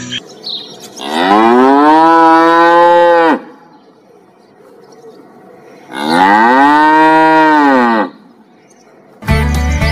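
Cow mooing twice, two long calls of about two seconds each that rise in pitch at the start and fall away at the end. Music comes in near the end.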